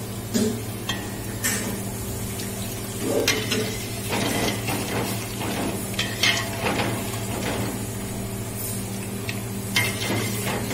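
Metal spoon stirring a hot liquid in a stainless steel saucepan, scraping and clinking against the pan several times, over a steady low hum.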